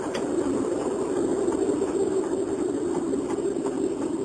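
Steady engine and road noise inside the cabin of a moving car, picked up by a mobile phone's microphone.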